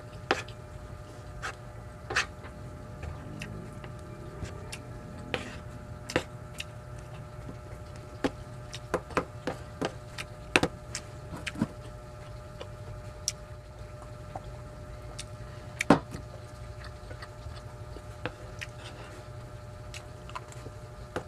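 Eating sounds: irregular sharp clicks and smacks from a wooden spoon scooping rice off a plastic tray and from chewing, the loudest about two thirds of the way through, over a steady background hum.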